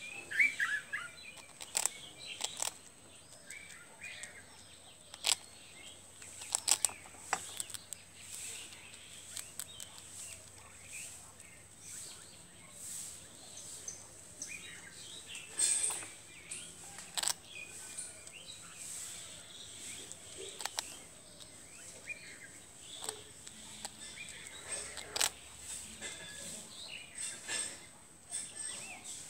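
A squirrel crunching hard toast, giving sharp crunches at irregular intervals, with birds chirping in the background and a steady high whine.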